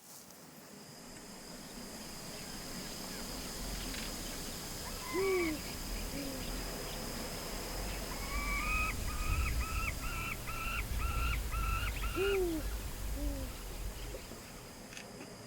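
Wild birds calling over a steady high insect drone and a low wind rumble: a low arched hoot-like call twice, about 5 s and 12 s in, and a bird repeating a short rising note about twice a second for several seconds in the middle.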